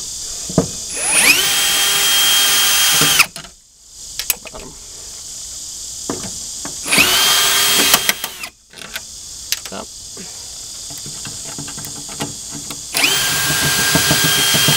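Ryobi brushless cordless drill/driver spinning taillight screws out, in three runs. Each run rises to a steady whine, lasts one to two seconds and stops sharply, with small clicks between the runs.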